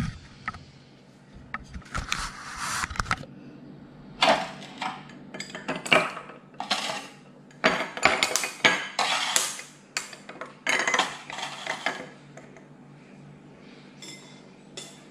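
A metal spoon clattering and scraping against a drinking glass and dish in short, irregular bursts. There is a brief pause about three seconds in, and the sounds die away about twelve seconds in.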